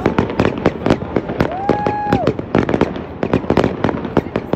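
Aerial fireworks going off in a dense barrage, several sharp bangs and crackles a second. A brief steady whistling tone, about half a second long, sounds about a second and a half in.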